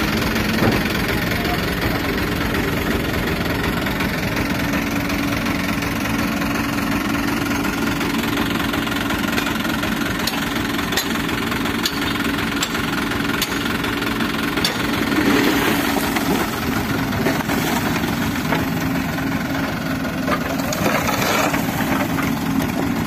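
A diesel dump truck's engine running steadily at idle. Near the end there is a brief rush of soil sliding out of the open tailgate.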